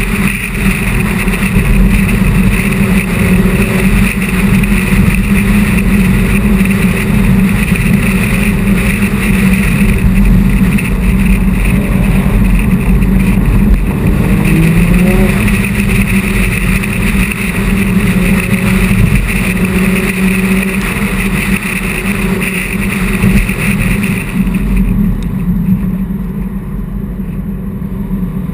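A car driving at highway speed: a steady low engine and road rumble with a hiss of wind and tyres, the hiss dropping away about 24 seconds in.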